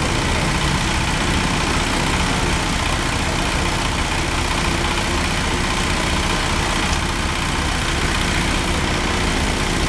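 Cat 320D2 GC excavator's diesel engine idling steadily.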